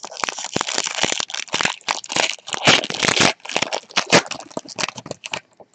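Plastic-foil wrapper of a football trading card pack crinkling and tearing as it is opened by hand: a dense run of crackles and sharp clicks that stops about five and a half seconds in.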